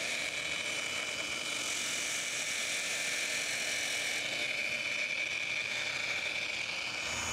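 Hand-held electric random-orbit sander with a dust-extraction hose running steadily, sanding the edge of a cut board with a constant high whine.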